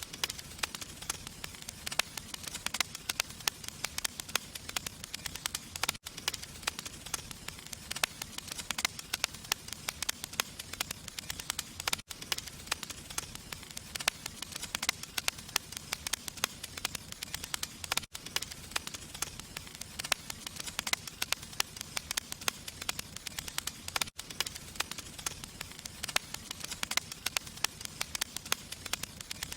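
Fire crackling steadily with dense, rapid pops and snaps, cutting out for an instant about every six seconds.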